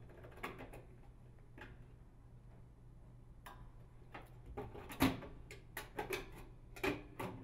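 Faint metal clicks as a nut driver turns out a hex-head screw in a bath fan's sheet-metal housing. From about five seconds in come louder clicks and knocks as the metal fan housing is handled and pulled down.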